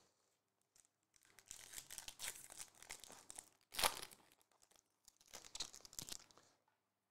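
Foil trading-card pack wrapper torn open and crinkled by hand, in three bouts of crackling with one sharp, loudest rip about four seconds in.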